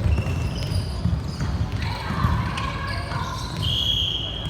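Indoor volleyball game: ball hits and bounces echo in a hall, with players' voices and short high squeaks.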